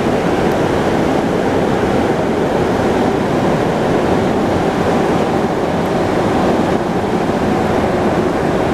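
Rubber-tyred MR-73 metro car running through the tunnel, heard from inside the car as a loud, steady rushing noise.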